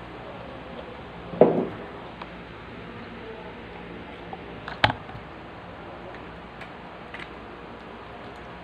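A white plastic spoon knocking and scraping in a paper takeaway box beside plastic cups while eating: a few sharp clicks over a steady hiss, with a louder, longer handling noise about a second and a half in and the sharpest click near the middle.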